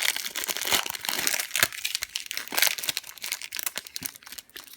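Foil wrapper of a Pokémon TCG booster pack crinkling and tearing as it is opened by hand, in a run of irregular crackles.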